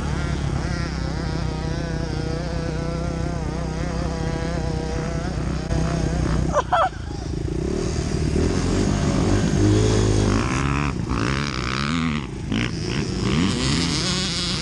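Honda dirt bike engine running while being ridden, its pitch wavering and then rising and falling with the throttle in the second half. A brief loud bump about seven seconds in.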